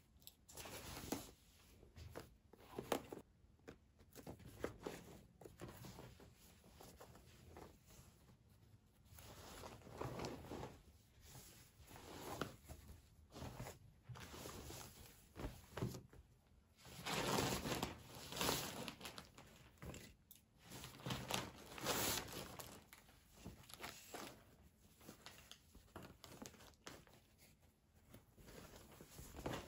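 Prayer rugs, fabric and plastic gift bags being handled and unfolded: irregular rustling and crinkling, loudest about two-thirds of the way through.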